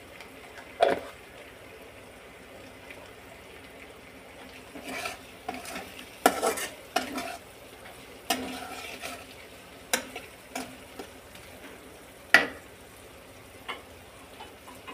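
Steel spatula stirring and scraping potato chunks and frying spice paste in a steel karahi, with sharp clinks of the spatula against the pan, loudest about a second in and near the end. A faint sizzle of frying runs underneath.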